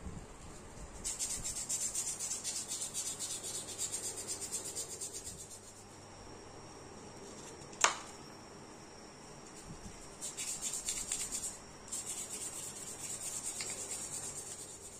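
Small sengon-wood slingshot frame being smoothed by hand with quick, short back-and-forth abrasive strokes, in two spells with a pause between them. A single sharp click about eight seconds in.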